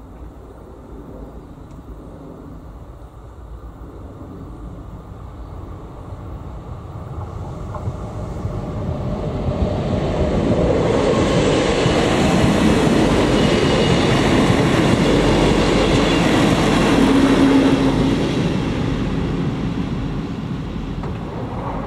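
ČD class 814 RegioNova diesel multiple unit approaching and passing over a level crossing. Its engine and wheel noise grow louder, are loudest from about halfway through until shortly before the end, then fade.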